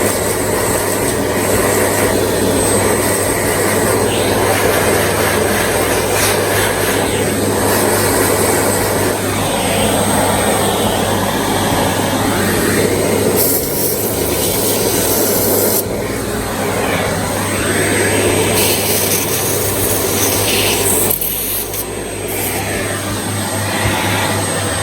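Small handheld electric cleaner's motor running steadily with a thin high whine, blowing or sucking dust out of the inside of an opened laptop. Its rushing noise shifts as it is moved over the parts.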